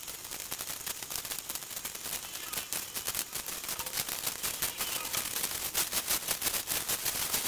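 A soft drink (Limca) boiling hard in a steel bowl on a gas burner: rapid, dense popping and crackling of bursting bubbles, played back at double speed and getting a little louder over the seconds.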